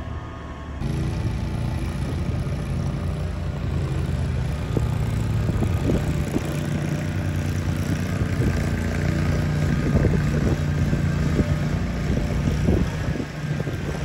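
Engine of a walk-behind snow-clearing machine running steadily, with scattered knocks and scrapes from about five seconds in.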